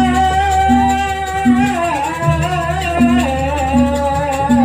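Jaranan gamelan music: a held, wavering melody line over short pitched notes that repeat about every three-quarters of a second, with a deep drone underneath.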